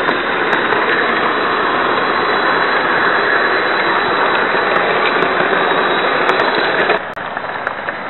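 Model train running noise, heard close up from a camera riding on the train: a steady, harsh rumble of the Märklin coaches' wheels on the track, with a few light clicks. It drops in level about seven seconds in.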